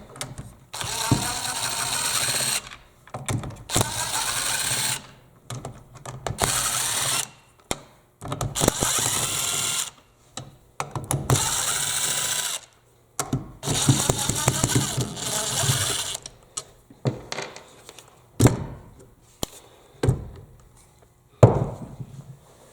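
Drill driver backing screws out of a plastic power-tool housing in about six short runs, its motor pitch bending as each screw spins loose. Near the end come scattered clicks and knocks of parts being handled.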